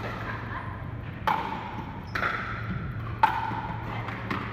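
Pickleball paddles striking a hard plastic ball during a doubles rally: four sharp pops with a short ringing tail, roughly a second apart, the second and fourth softer. A steady low hum runs underneath.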